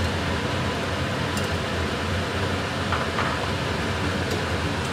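Steady fan-like hum and whoosh, with a strong low hum and a few faint light ticks.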